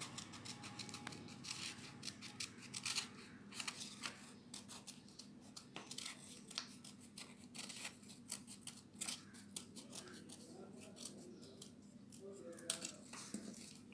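Scissors snipping through orange paper: a run of short, irregular snips as a round shape is cut out.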